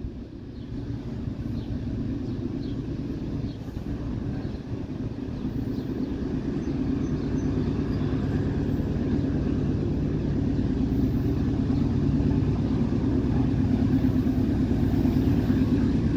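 Diesel locomotives of a loaded coal train approaching unseen, working hard: a steady low engine drone with several held tones that grows gradually louder.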